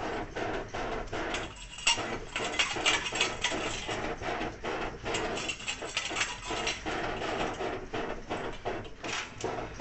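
Scraping and rubbing strokes on a copper pot being tinned and polished, several strokes a second and uneven, with metallic knocks of the pot. The loudest strokes come about two to three seconds in.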